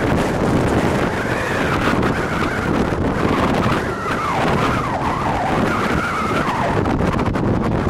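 Wind rumbling on the microphone, a steady noise throughout, with a few wavering tones sliding up and down through the middle.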